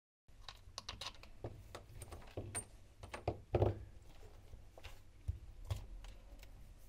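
Irregular clicks and knocks of a Shurflo 12 V water pump's plastic housing being handled as its pump head is worked off the motor, with one louder thump a little past halfway.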